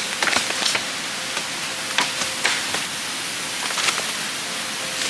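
Footsteps and handling in dry forest leaf litter, with a dozen or so sharp crackles and snaps of twigs, over a steady high drone of forest insects.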